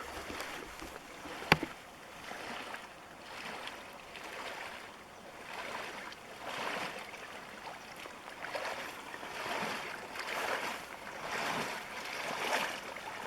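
Someone wading through shallow water, sloshing about once a second. A single sharp click comes about a second and a half in.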